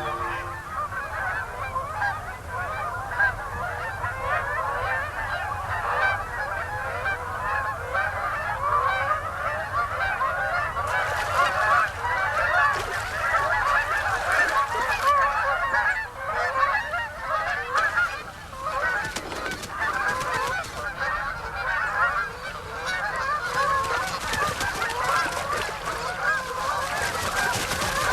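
Large flock of Canada geese honking, with many calls overlapping in a continuous chorus.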